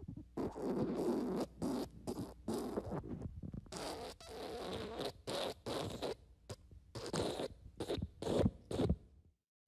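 Fart sound effect: a long run of short, rapid bursts, some drawn out, for about nine seconds.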